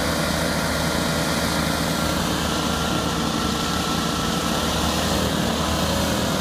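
Racing lawnmower engines running steadily at idle, a constant drone with a faint high whine over it.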